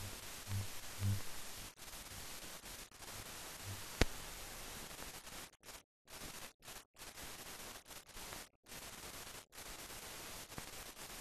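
Steady hiss of a silent-film transfer with no recorded sound, broken by several brief dropouts and a single sharp click about four seconds in. Faint low pulses repeat about twice a second at the very start.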